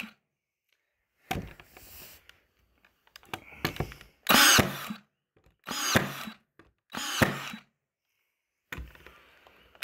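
Ryobi AirStrike cordless nail gun driving nails into wooden boards: three sharp shots about four, six and seven seconds in. Quieter knocks and handling clatter come between them.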